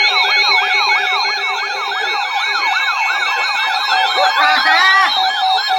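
Weather alert radios sounding their alarms together: a siren-like tone sweeping up and down about three times a second over steady, broken beeping tones. A short wavering sound breaks in about four and a half seconds in.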